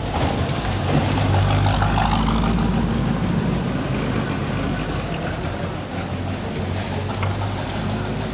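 Street traffic: a motor vehicle's engine running close by, a steady low hum under general street noise.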